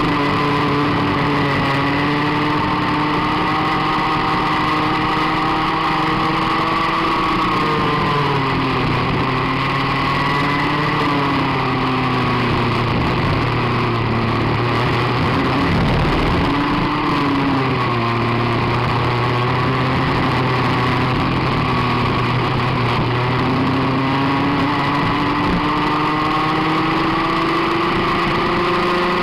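Rotax Max 125cc two-stroke kart engine at racing pace, heard close up from onboard the kart. Its revs drop twice, for the corners, and climb again on each exit, with a long rise through the second half.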